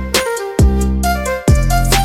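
Background music: an instrumental passage of a Vietnamese pop song, with deep drum hits about twice a second under sustained bass notes and a melody line.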